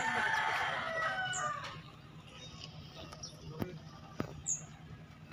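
A rooster crowing, the crow fading out about two seconds in. After it come a few short, high bird chirps and light clicks.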